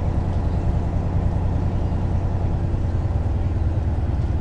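Semi-truck's diesel engine running at low speed while the truck rolls slowly, heard from inside the cab as a steady low drone.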